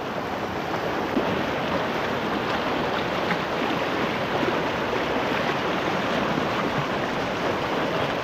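Swift river rushing over a rocky bed in a steady rush of water, with a few faint splashes as a cast net is hauled out of the current.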